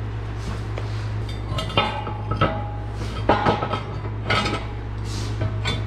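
Steel parts of an Ironton 20-ton shop press clanking together as the heavy top beam is handled and set onto the frame uprights: several sharp metal knocks, some with a short ring.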